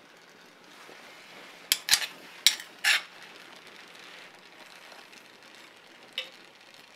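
Gas torch hissing steadily while a tool scrapes flux off a hot brazed joint on a steel tang, giving four sharp clicks in just over a second, about two seconds in, and one more near the end.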